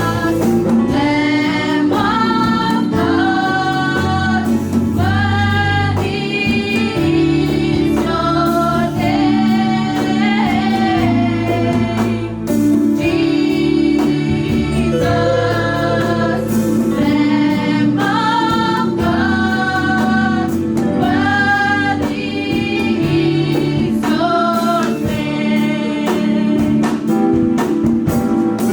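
Live gospel worship music: a choir of voices sings a held, flowing melody over keyboard or bass and a steady drum beat.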